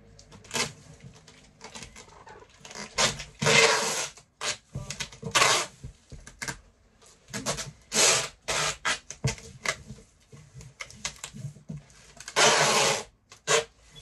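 Brown packing tape pulled off the roll in several long strips, about four main pulls of half a second to a second each, and pressed and rubbed down onto a cardboard box, with short handling knocks and rubs in between.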